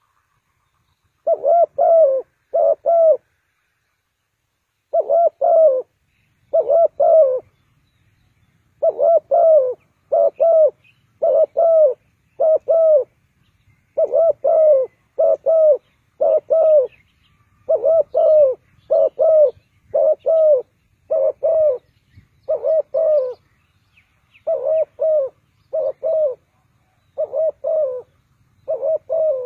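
Spotted dove cooing: short low coos in phrases of two or three, repeated over and over at a steady pace, beginning about a second in.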